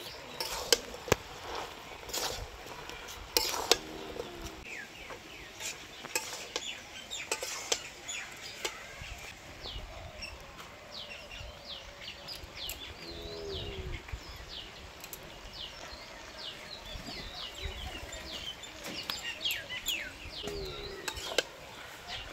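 A metal spatula clinks and scrapes against a kadai as vegetables are stirred, with sharp knocks mostly in the first several seconds. Small birds chirp through the middle and later part, and a few low clucking calls, like a hen's, sound now and then.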